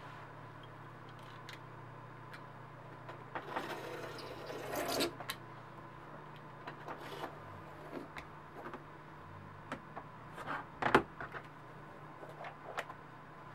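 Scraping and rubbing of a marking tool and steel ruler on elephant-hide leather over a cutting mat, strongest for about a second and a half around four seconds in, with scattered light taps. One sharp clack about eleven seconds in as the steel ruler is set down across the hide. A steady low hum runs underneath.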